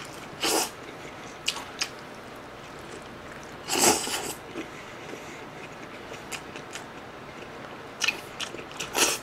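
Bites into a fried chicken burger (Mom's Touch Masala Burger, whole chicken-thigh patty with lettuce, onion and tomato): crisp crunches and close-up chewing in short bursts, the loudest bite about four seconds in and several more near the end.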